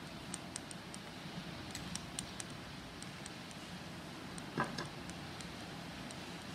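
Small ticks and crackles of crushed peanuts as a jam-coated cookie is pressed and rolled in them on a glass plate, mostly in the first half, with one sharper knock about four and a half seconds in, over a low steady hum.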